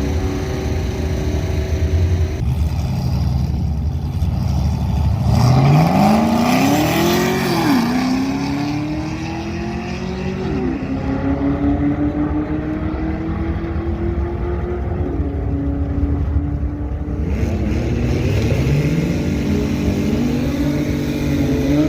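Car engine accelerating hard down a drag strip. Its pitch climbs steeply about five seconds in, then drops back at each of three upshifts and climbs again, with another run-up starting near the end.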